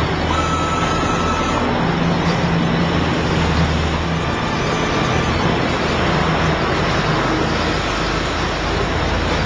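CNC machine running: a steady, loud mechanical noise with a low hum and no breaks.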